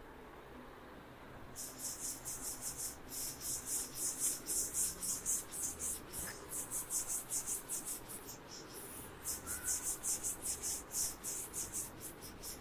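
Handwriting: a long run of quick, light scratching strokes, starting about a second and a half in, with a brief pause a little past the middle.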